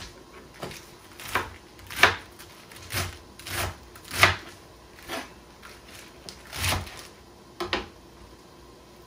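Kitchen knife chopping bok choy on a plastic cutting board: about nine irregular chops a second or so apart, each a sharp knock of the blade on the board.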